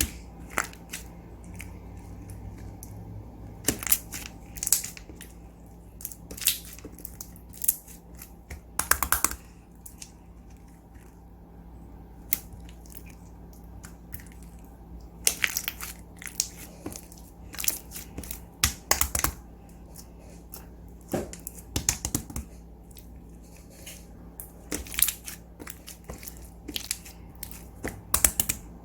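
Slime being squeezed, stretched and folded by hand, giving irregular clusters of sharp clicks and crackling pops.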